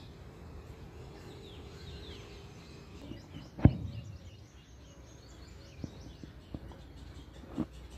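Faint outdoor background with small birds chirping in short, high, downward notes. A sharp thump comes a little past the middle, the loudest sound, followed by three lighter knocks near the end.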